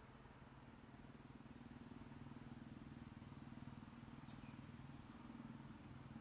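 A faint, distant engine running with a low pulsing hum that grows slightly louder from about a second in, then cuts off at the end.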